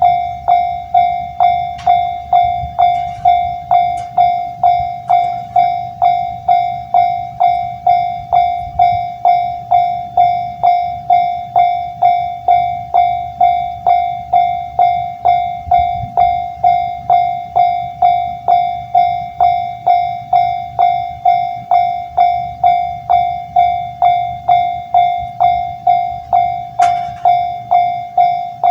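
Japanese railway level crossing warning bell ringing continuously, an even ding-ding of one bright pitch at about one and a half strikes a second, each strike fading quickly before the next. A low rumble runs underneath, with a sharp click near the end.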